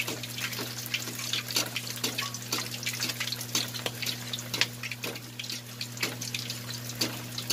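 Pork hock deep-frying in hot oil: a steady sizzle with frequent small pops and crackles as the skin crisps. The burner is already off, so it is frying on the oil's own heat.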